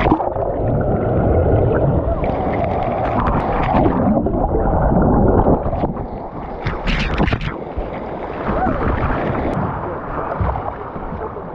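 Water splashing and churning, with a burst of brighter splashing about seven seconds in.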